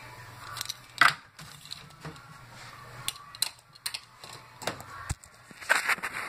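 Handling clatter: a scatter of sharp clicks and knocks over a low steady hum, with the loudest knock about a second in and a quick cluster near the end.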